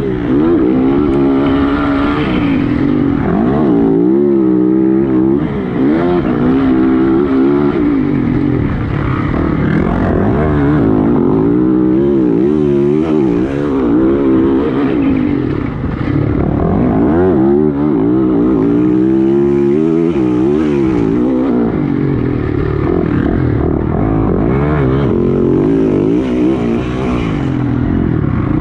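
Several motocross bikes' engines revving hard on the track, their pitch rising and falling over and over as they accelerate and back off, with more than one engine sounding at once.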